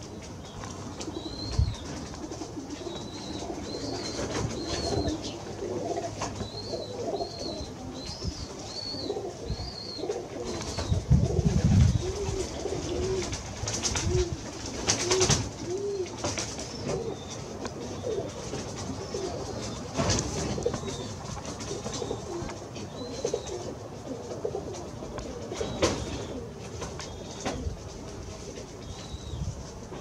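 Pigeons cooing, several voices overlapping in a steady low warble, with a clear run of repeated coos in the middle. A series of high, short chirps from another small bird runs through the first ten seconds, and a brief low rumble comes about eleven seconds in.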